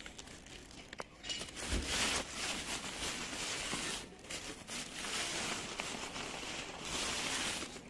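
Plastic packaging rustling and crinkling in long crackly stretches, with short breaks about halfway through.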